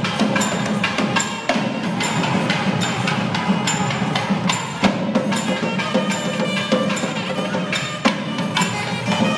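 Music with a steady percussion beat of about two strikes a second, with sustained melodic tones over it.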